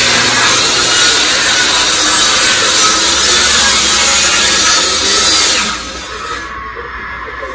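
Ryobi benchtop table saw cutting through a wooden board, running loud and steady; a little under six seconds in the cut ends and the sound drops sharply to a much quieter hum.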